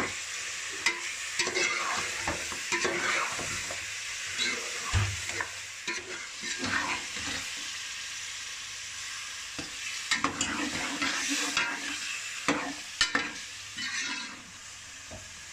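Meat and spices frying and sizzling in an aluminium pot while a metal spoon stirs, clinking and scraping against the pot at irregular moments.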